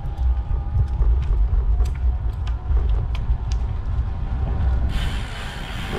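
Road bike rolling over a rough, gravel-patched road surface: a heavy low rumble through the bike with scattered sharp clicks of small stones. About five seconds in it gives way to a smoother, steadier hiss.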